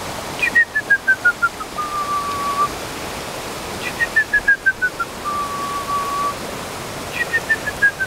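A bird singing a clear whistled song three times, the third starting near the end: a quick run of short notes falling in pitch, then one long, even note. Underneath, the steady rush of the rain-swollen creek.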